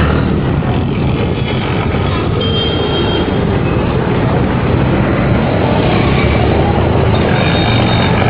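Road traffic: a steady, dense rush of passing vehicles' engines and tyres.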